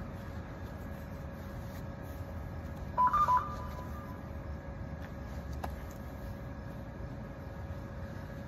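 A quick run of short electronic beeps at two close pitches, lasting about half a second, about three seconds in. Under it runs a steady low rumble with a faint constant hum.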